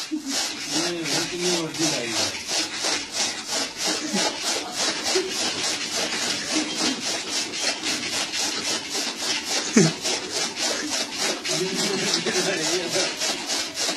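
Bicycle-driven chaff cutter chopping green fodder in a steady rasping rhythm of about three to four strokes a second. There is a single sharp knock about ten seconds in.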